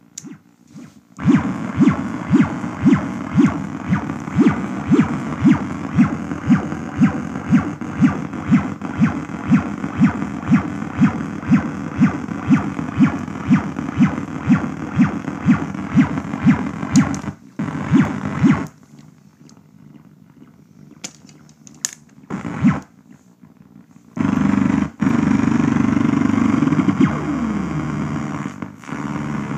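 Knas Ekdahl Polygamist synthesizer playing a noisy, buzzy pulse that repeats about two and a half times a second and stops at about 18 seconds. After a few quieter seconds with a few sharp clicks, a loud, noisy synth drone comes in, with falling pitch sweeps near the end.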